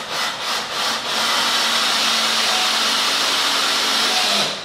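A few quick back-and-forth rubbing strokes on wood, then a handheld power tool running steadily against wood for about three and a half seconds before it stops. Wood is being taken off a chair part a hair at a time so that it fits.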